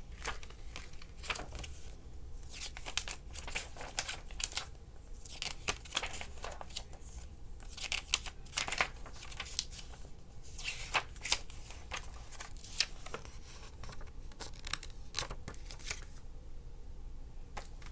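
Paper CD booklet rustling and crinkling as it is unfolded and handled: a run of small, irregular crackles and rustles that pause about two seconds before the end.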